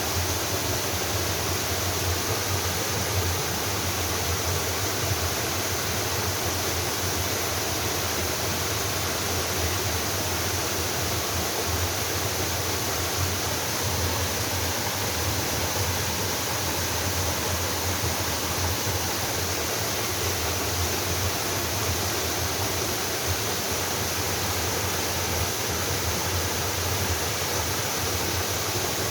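Waterfall pouring steadily into a mountain valley stream: a dense, unbroken rush of falling water.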